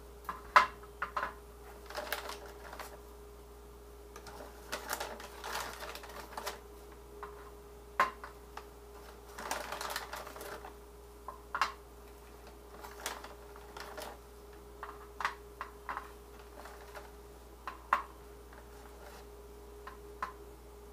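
Sweet potato fries clicking as they are dropped one at a time onto a baking pan, with the plastic bag of fries crinkling now and then between them. A steady faint hum runs underneath.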